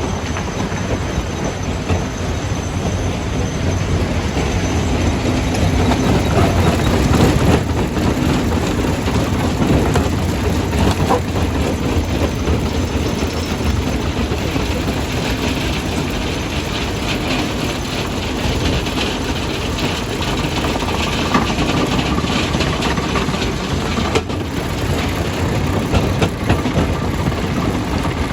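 Jaw crusher crushing rock: a continuous heavy mechanical rumble with many irregular knocks and cracks of stone breaking, slightly louder about a quarter of the way in.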